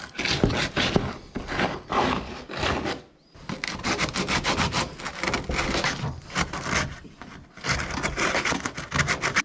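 Rough edges of a freshly hole-sawn opening in a fibreglass boat bulkhead being smoothed by hand with an abrasive, rapid back-and-forth scraping strokes. The strokes break off briefly about three seconds in, then resume.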